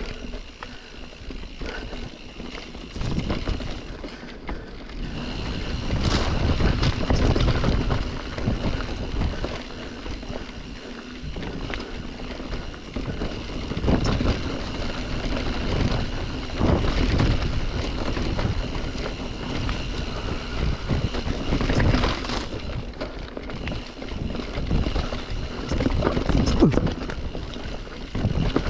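Mountain bike riding over a root-covered dirt trail: tyres rolling and the bike rattling and knocking over roots, with wind buffeting the microphone. The noise rises and falls in waves.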